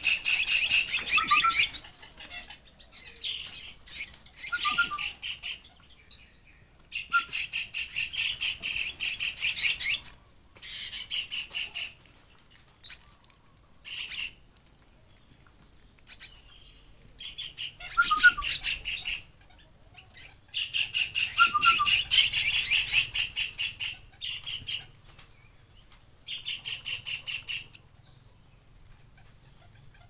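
Several young Javan mynas begging to be fed: harsh, rapidly pulsed rasping calls in bursts of one to three seconds, starting again every few seconds, loudest at the start, around ten seconds in and past twenty seconds.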